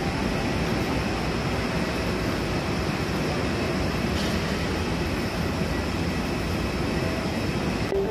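Steady rushing background noise of an airport terminal corridor as passengers walk through.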